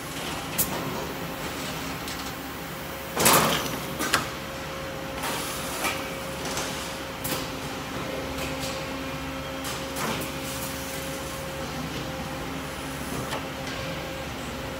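Automatic panel-processing machine running with a steady hum, with scattered clicks and clanks and a loud, short rush of noise about three seconds in.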